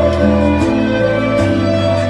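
Recorded instrumental music over a loudspeaker, held melodic notes over a steady bass, the chords changing twice.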